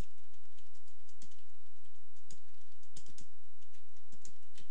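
Typing on a computer keyboard: irregular keystrokes, a few a second, over a steady low hum.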